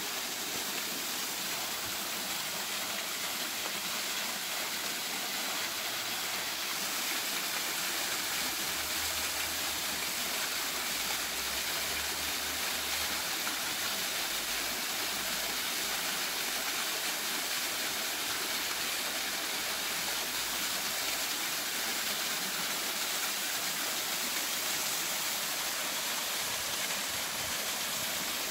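Water jets of a ground-level fountain shooting up from a metal floor grate and splashing back down onto it: a steady rush of falling water.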